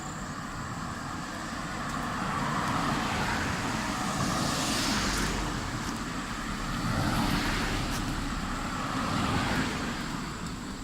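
Road traffic: about four cars pass one after another, each swelling up and fading away over a steady background of traffic noise.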